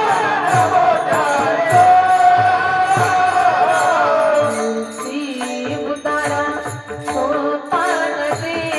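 Devotional kirtan music: a voice sings long held notes over harmonium, with small hand cymbals striking in a steady beat and a drum beating low. About halfway through, the singing stops and the harmonium carries on alone with the cymbals and drum.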